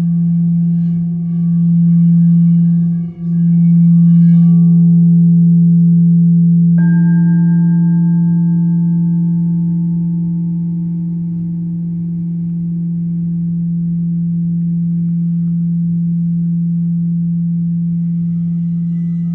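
Singing bowls sounding a deep, steady, wavering drone. About seven seconds in, another bowl is struck and adds higher ringing tones that slowly fade, and a further tone enters near the end.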